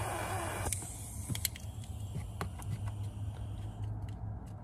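Heat gun blowing as it shrinks a heat-shrink connector over spliced wires, cutting off suddenly under a second in. A few light clicks and taps follow over a low steady hum.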